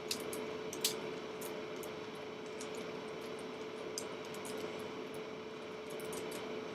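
Scattered sharp plastic clicks of a 1x3x3 puzzle cube's faces being turned, with the strongest click just under a second in, over a steady hiss and hum.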